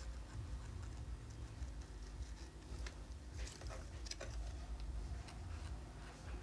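Faint, scattered clicks and light taps of small phone parts being handled during a screen repair, a few sharper clicks around the middle, over a steady low hum.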